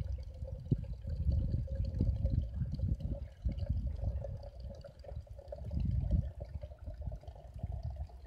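Wind buffeting the microphone of a handheld phone: an uneven, gusty low rumble that swells and drops every second or so. A faint steady hum sits underneath.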